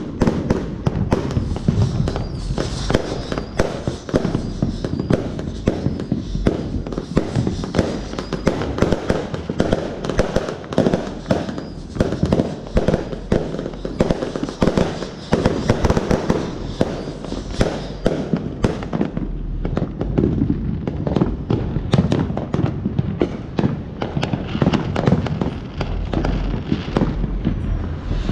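Consumer fireworks going off in a dense barrage: overlapping bangs, pops and crackling from aerial shells and firecrackers, many reports a second.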